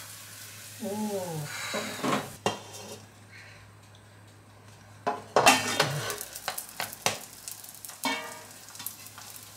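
A wooden spatula knocks and scrapes against a nonstick frying pan as a shallow-fried flatbread is moved and turned, with a light frying sizzle underneath. The knocks come thickest in the second half.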